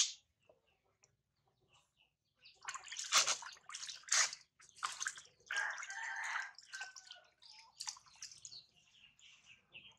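Water splashing and trickling as a hand scoops water from a plastic tub and pours it over a baby monkey's head, with dripping back into the tub. It starts about two and a half seconds in and comes in several separate splashes.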